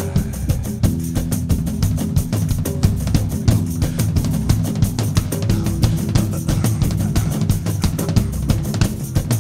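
Band music without vocals: a drum kit keeping a steady, fast beat over bass and guitar.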